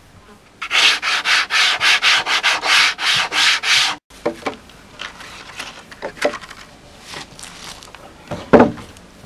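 Rapid back-and-forth sanding strokes of a hand-held block on a flat wooden panel, about four strokes a second, for some three seconds. After they stop come a few light knocks of wood, then one sharp wooden knock near the end as a plank is handled.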